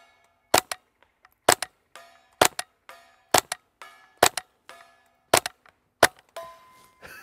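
Suppressed Kriss Vector .22LR carbine firing CCI Quiet Semi-Auto subsonic rounds in slow semi-auto fire: seven quiet shots about a second apart. Each is followed by a faint ringing of steel targets hit at 100 yards.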